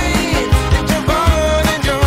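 Bluegrass band playing: a voice sings a sustained melody over picked banjo, strummed acoustic guitars and a steady bass line.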